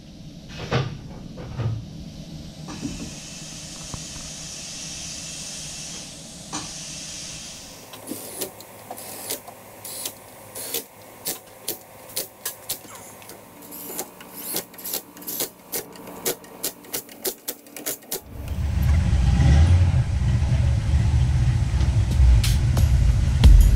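Lug nuts being run on and tightened on a car wheel: a few knocks and a spell of hiss, then a long run of sharp clicks, about two or three a second. Near the end a loud low rumble takes over.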